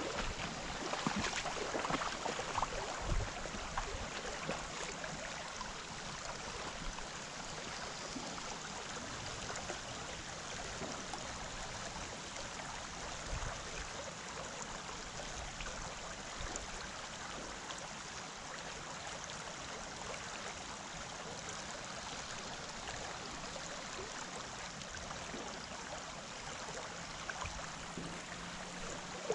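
Shallow creek water flowing steadily over a rippled riffle, a continuous rushing hiss, a little louder and more uneven in the first few seconds.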